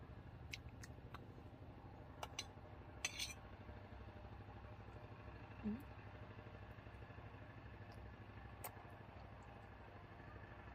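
Faint, light clinks of a small metal spoon during spoon-feeding, a few scattered taps with a quick cluster about three seconds in, over a steady low hum. A brief short squeak comes about halfway.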